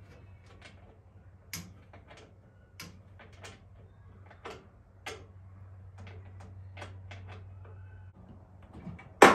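Scattered light clicks and metal knocks of hand tools on a Husqvarna chainsaw, over a low steady hum, as the saw is put back together after a change to a .404 sprocket. Near the end comes a loud, short rush of noise.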